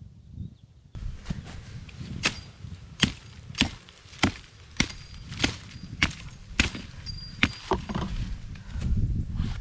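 Wood being chopped with a hand-held blade: a run of about nine sharp, evenly paced strikes, a little under two a second.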